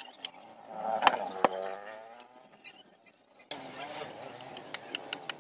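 Hardwood board being handled and set against wood, giving two sharp knocks close together about a second in and a few lighter taps near the end.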